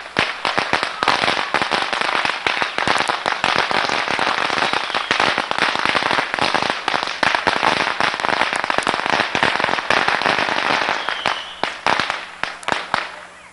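A string of firecrackers going off in a dense, rapid crackle of bangs, thinning out to scattered single bangs near the end.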